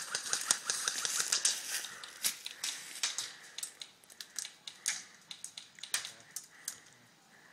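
Airsoft guns firing: a quick string of sharp snapping shots for about two seconds, then scattered single shots.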